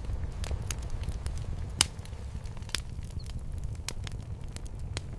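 Fire crackling: scattered sharp pops, the loudest about two seconds in, over a steady low rumble.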